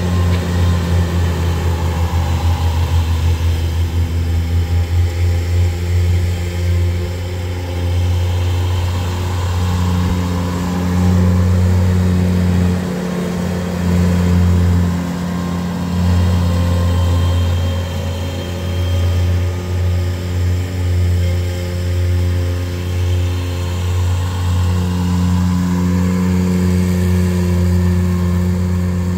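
Small tractor engines running steadily: a garden tractor pushing snow with a front plow blade and a compact tractor driving a front-mounted snowblower. The engine hum swells and eases as they move.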